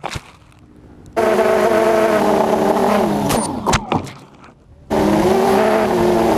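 ZMR250 racing quadcopter's brushless motors and propellers. A steady multi-tone whine spins up about a second in, then a few knocks and the pitch falling away around three and a half seconds as the quad crashes into the grass. After a short lull the whine spins up again about five seconds in.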